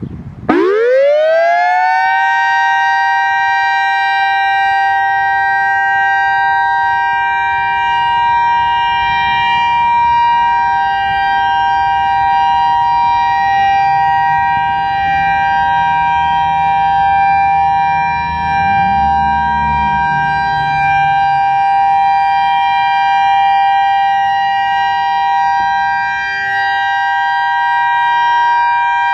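Federal Signal EOWS 612 electronic outdoor warning siren sounding its Alert signal. The pitch sweeps up sharply over the first second or two, then holds as a steady, loud two-note tone. The level swells and dips slightly as the rotating six-horn speaker array turns.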